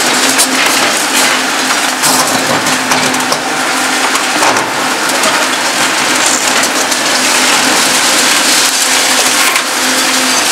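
Reinforced concrete crushing and cracking in the jaws of a Demarec DCC-75 hydraulic concrete shear, with continuous crackling and snapping of breaking concrete and falling debris. A steady hum from the Volvo EC 750E excavator runs beneath, clearest near the start and the end.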